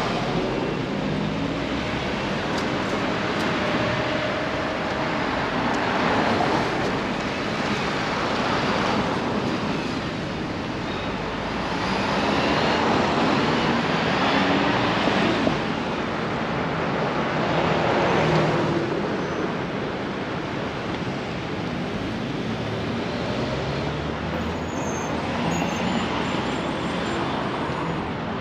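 Busy city street traffic: cars driving past one after another, with tyre and engine noise swelling and fading as each vehicle goes by.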